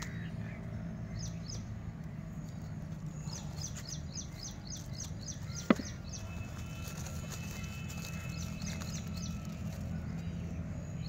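Birds chirping in quick repeated series over a steady low hum, with one sharp click a little past halfway.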